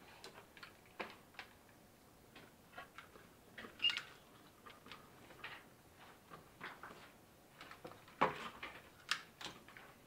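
Irregular light clicks and taps of hands handling fan wires and a cardboard box, with a louder knock about eight seconds in.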